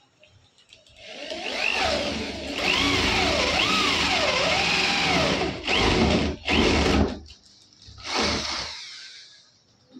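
Electric hand drill boring into a laminate-faced wooden door for a lock, its motor pitch rising and falling as the bit bites. It runs for about four seconds, then is pulsed in three short bursts.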